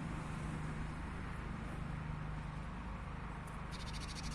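Steady outdoor background hum, like distant traffic. Near the end it is joined by a small bird's rapid, high-pitched chattering call.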